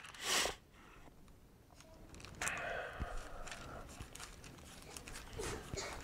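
Thin Bible pages being turned by hand: one quick swish of a page just after the start, then a longer run of papery rustling and flicking from about two and a half seconds in.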